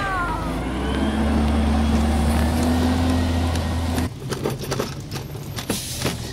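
Garbage truck engine running with a loud steady low drone and a higher hum that creeps slightly upward, cutting off suddenly about four seconds in; after that comes a quieter stretch of scattered clicks and knocks.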